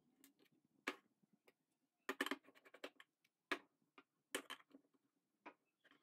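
Irregular light clicks and taps, some in quick little clusters, of a wooden stirring stick against a metal portafilter basket as espresso grounds are stirred and levelled.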